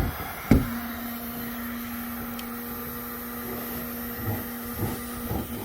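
Heat gun blowing steadily as it heats the plastic hull surface. Two knocks right at the start; a steady hum sets in just after the second, about half a second in, and stops near the end.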